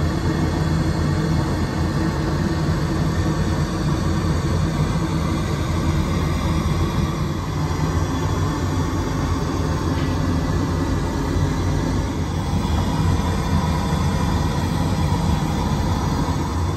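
Steady cabin noise inside a Boeing 767-400 airliner: an even drone of jet engines and airflow, heaviest in the low end.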